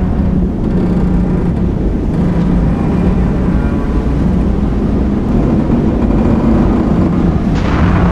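Sound-design recreation of a sinking lake freighter: a heavy, steady low rumble with a faint hum under it. Near the end a rush of hissing noise swells up briefly.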